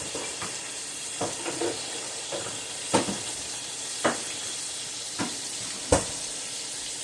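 Steaks sizzling steadily in a frying pan, with several sharp taps and knocks spread across it, the loudest about three seconds in and just before six seconds.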